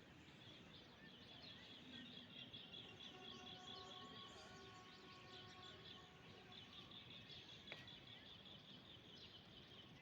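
Faint chorus of many small birds chirping together, with one sharp click about eight seconds in.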